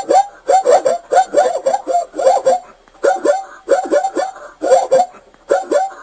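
Zebra calling with its barking bray: runs of quick, high yelping notes, a new run about once a second.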